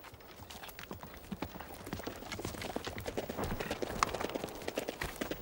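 Rapid, irregular clopping footfalls on hard ground, growing louder over the first few seconds.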